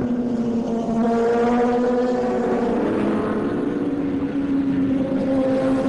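Superbike racing motorcycles' engines running on track, a steady engine drone with the tones of several bikes overlapping, one of them rising a little about halfway through.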